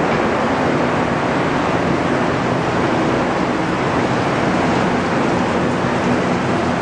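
Steady rush of wastewater flowing through the inlet channel and its bar screen, with a low steady machine hum underneath.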